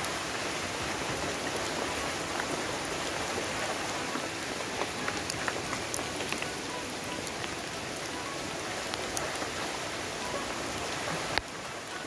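Steady rain falling, with scattered drops ticking close by. A single sharp click near the end.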